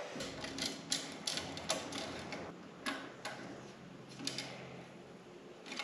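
Scattered light clicks of a 4 mm hex driver and a 10 mm wrench on a bolt and nut as the bolt is tightened down, about a dozen irregular ticks.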